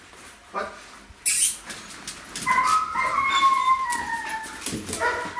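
German Shepherd dog whining: a short yip about half a second in, then a long high whine about halfway through that slowly falls in pitch, and another short whine near the end.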